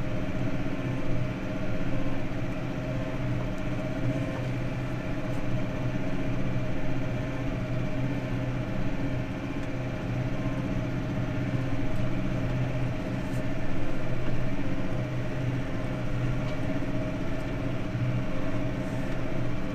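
Tractor engine running steadily under load while pulling a muck spreader across the field.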